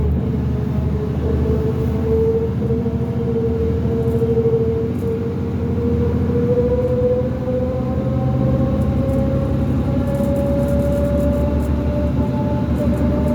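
2005 New Flyer D40LF transit bus with a Cummins ISL diesel running under way, with a low engine rumble and a strong whine that climbs slowly in pitch as the bus gains speed. The whine is the odd axle noise this bus is noted for, a gear whine from the rear axle.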